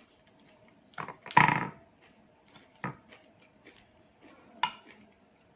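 Eating salad in a mukbang: a short voiced hum or grunt about a second and a half in, then a few faint clicks of chewing and mouth noise.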